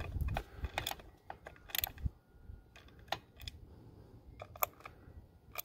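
Sparse light metallic clicks and ticks of a hand wrench working the bolts of a motorcycle cover, tightened a little at a time in a crisscross pattern. The clicks come singly and in small clusters at uneven intervals.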